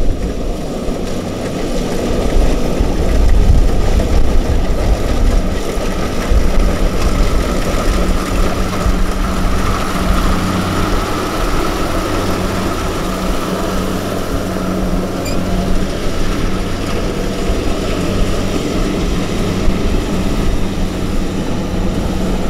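Engine of farm machinery running steadily, with a constant low hum and no break in its speed.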